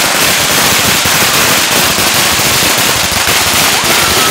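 Firecrackers going off in the street: dense, continuous rapid crackling and popping.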